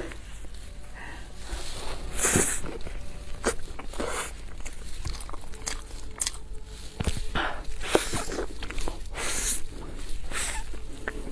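Close-miked eating: bites into and wet, smacking chewing of a large soft bun coated in fluffy floss with a creamy filling, in irregular clicks and short hissy bursts.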